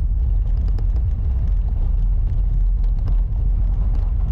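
Jeep driving on a trail: a steady low engine and drivetrain rumble with faint scattered knocks.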